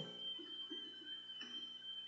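Quiet pause with a steady high-pitched whine and a few faint, soft, low tones beneath it.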